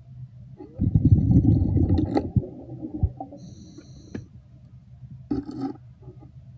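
Underwater air bubbling and gurgling, in a loud rush about a second in and a shorter one near the end, with a few sharp clicks and knocks.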